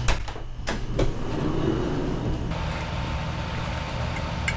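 A few sharp knocks and clicks in the first second, then the steady mechanical hum of the running air conditioner's condenser unit, which is mounted under the van.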